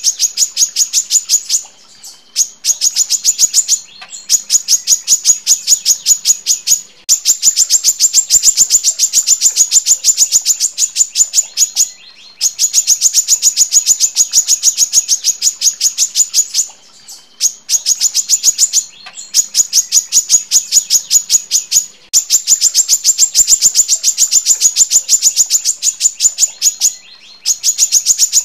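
Female brown-throated sunbird (kolibri kelapa) calling in long, tight runs of sharp, high notes, about ten a second. Each run lasts several seconds and is broken by short pauses.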